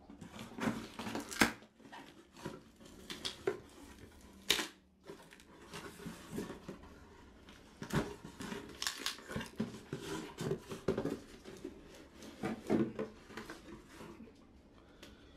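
A cardboard box being opened by hand, its flaps rustling and crackling with irregular sharp snaps, the loudest about one and a half and four and a half seconds in, as a stoneware utensil crock is handled inside it.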